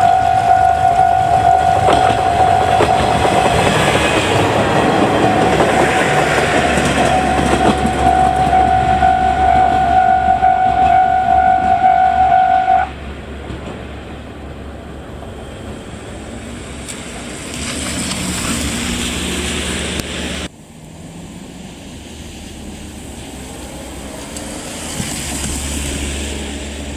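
Japanese level-crossing alarm ringing its steady pulsing electronic clang while Aizu Railway AT-400 and AT-351 diesel railcars pass with wheel clatter. The alarm stops abruptly about halfway through, leaving the quieter rumble of the train. The rumble swells twice more and drops suddenly about two-thirds of the way in.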